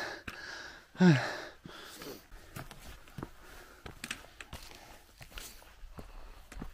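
A hiker breathing hard, with a short groan falling in pitch about a second in, then footsteps and walking-stick taps on a cobbled stone path, sharp clicks about two to three a second.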